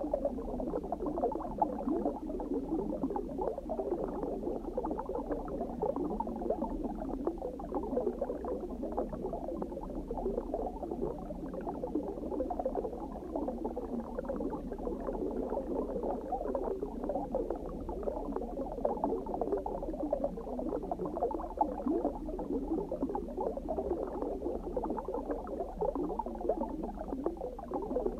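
Underwater ambience: a steady, muffled bubbling and gurgling of water, made of many small dense pops with no high, bright sound.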